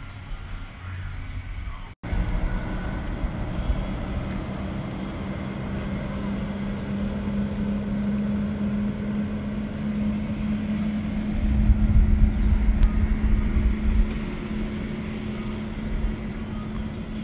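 A motor vehicle running with a steady low hum and rumble, which swells louder for a couple of seconds past the middle.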